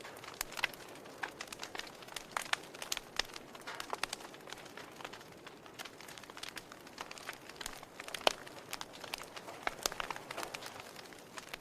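Wood fire crackling, with irregular sharp pops and snaps over a soft hiss; the loudest pop comes about eight seconds in.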